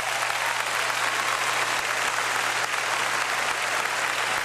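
Large congregation applauding steadily, a dense, even clapping that holds its level throughout.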